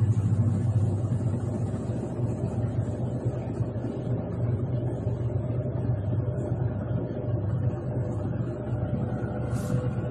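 Tangarus portable washing machine's motor running with a steady hum, and a brief high hiss near the end.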